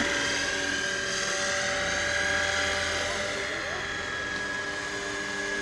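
Radio-controlled scale model helicopter in flight: a steady whine from its drive and rotors, with several held tones, dipping a little in loudness through the middle.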